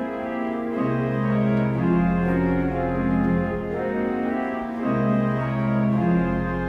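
Organ playing a slow piece of sustained chords that change about once a second, over deep bass notes that come in and drop out.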